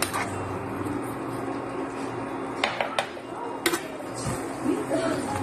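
Metal spatula stirring a simmering sauce in a nonstick frying pan, scraping and knocking against the pan, with three sharp clinks close together a little past the middle.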